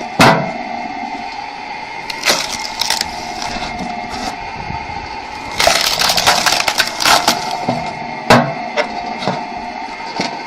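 Firewood being split by hand with blows of an axe or cleaver: sharp strikes and the crack of the wood splitting apart. There is a loud blow right at the start, a quick run of strikes and splitting in the middle, and another hard blow near the end.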